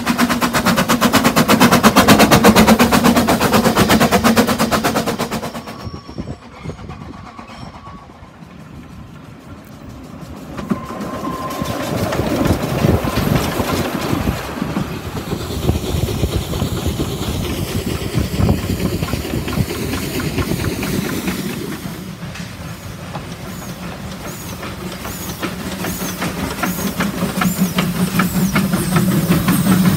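Narrow-gauge steam locomotives running past close by, with steam hiss and wheels clattering on the rails. The sound drops off suddenly about six seconds in, then builds again as another engine passes, and swells once more near the end.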